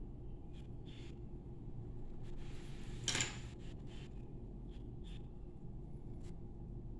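A coloured pencil making short, light strokes on drawing paper, a faint scratch now and then over a steady low hum, with a louder rush of noise about three seconds in.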